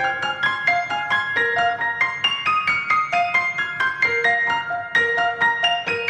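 Background music: a steady stream of quick piano notes, about four a second, in a high register.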